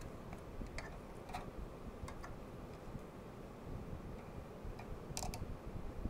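A few light, scattered clicks and ticks from hands working on wiring and plastic connectors in a fire alarm panel, the sharpest near the end, over a steady low background rumble.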